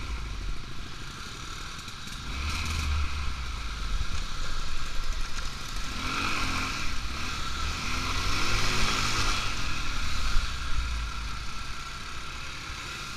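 ATV engine running under way, its pitch rising and falling between about six and ten seconds in, over a heavy, uneven low rumble of wind on the microphone.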